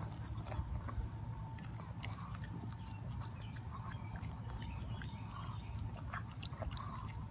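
A pug chewing and tearing at grass: a run of irregular crunching clicks.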